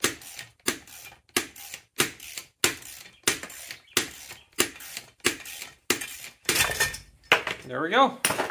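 Socket ratchet clicking on each back-swing, about one and a half strokes a second, as it winds a nut along an all-thread rod on a homemade Unistrut puller drawing a Kubota V2203 flywheel off its crankshaft. Near the end a longer metallic scraping rattle as the flywheel comes free.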